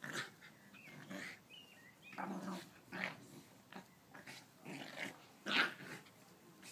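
Two dogs play-fighting, growling in short rough bursts, about six of them, the loudest a little past five seconds in.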